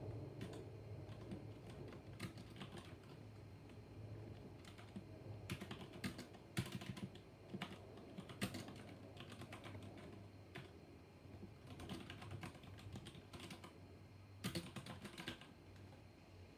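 Typing on a mechanical keyboard with Cherry MX Black (linear) switches: irregular key presses with clusters of quick strokes around the middle and near the end.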